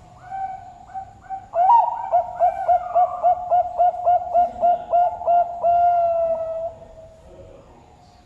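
Zebra dove (perkutut) singing: a few soft opening coos, a loud rising note, then a quick run of about a dozen pulsed coos at roughly three a second, ending in one long drawn-out coo.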